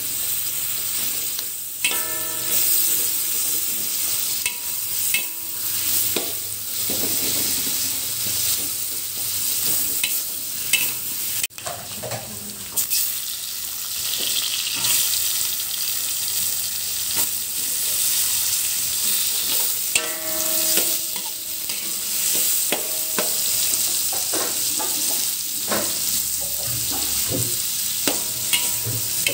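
Sliced red onion and tomato halves sizzling in hot oil in a wok, stirred with a metal spatula that scrapes and clinks against the pan, now and then with a brief ringing scrape. The sound breaks off for an instant about eleven seconds in.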